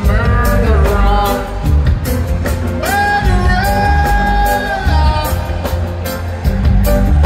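Live reggae band playing (bass, electric guitars, keyboards, drums) with a male singer over a steady beat; about three seconds in he holds one long sung note for around two seconds.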